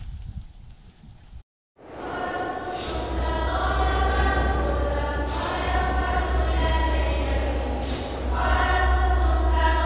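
Choral singing over a steady low drone, fading in just after a brief dead silence about one and a half seconds in: background choir music laid over the footage.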